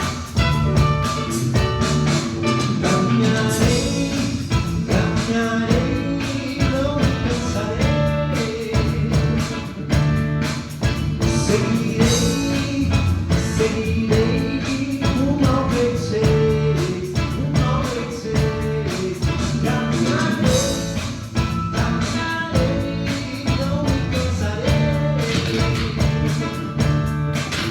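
Instrumental introduction of a gospel song: a guitar-led melody over bass and a steady drum beat.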